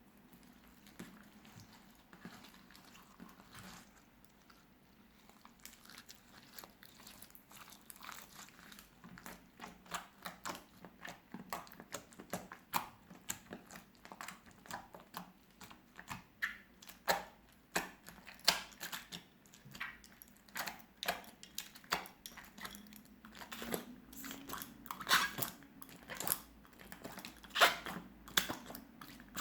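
Clear slime mixed with coloured rice being worked by hand, crunching and crackling in quick irregular clicks and pops. The clicks are faint and sparse at first, then grow louder and more frequent from about six seconds in.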